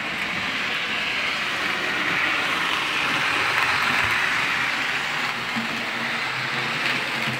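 Jouef 141 HO-scale model steam locomotive, digitally converted with its motor in the tender, running in reverse along the track: a steady rushing noise of the small motor and the wheels on the rails.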